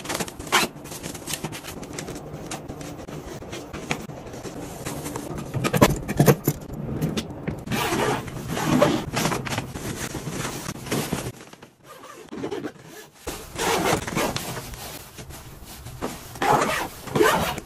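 Storage containers being handled: a plastic storage box's lid and body scraping and clicking, then a fabric storage bin rustling with its zipper and the clothes inside. The noises come in uneven bursts, with a brief lull about two-thirds through.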